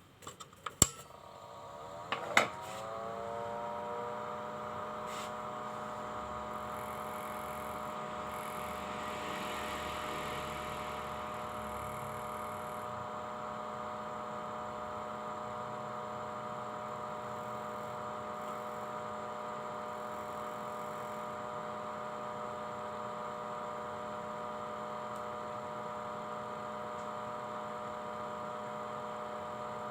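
Two sharp clicks, then a small electric motor spins up with a briefly rising whine and runs on steadily as an even, pitched hum.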